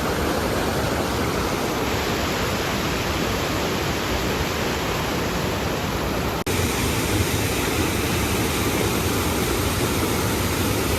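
Stream water rushing steadily over rocks, with an abrupt jump in the sound about six and a half seconds in where two takes are spliced together.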